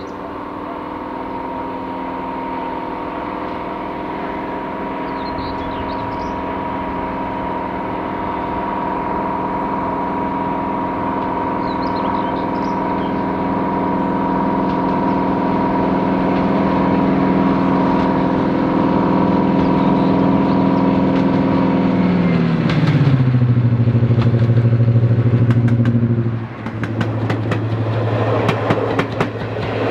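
Heritage diesel locomotive working under power, its engine note steady and growing louder as it approaches, then falling sharply in pitch as power is eased about three-quarters of the way through. Near the end its wheels clatter over the rail joints as it passes.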